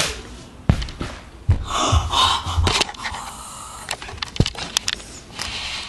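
Several sharp knocks and thumps, with a rustling stretch about two seconds in, from things being handled close to the microphone.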